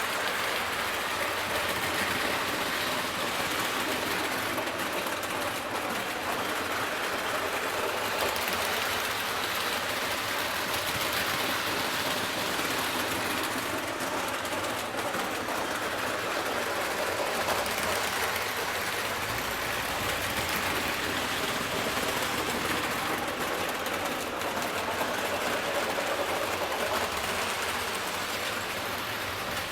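Lionel O-gauge Camelback steam locomotive model running on three-rail track: the steady whir of its electric motor and gearing with the clatter of wheels on the rails, swelling and easing slightly as it circles the layout.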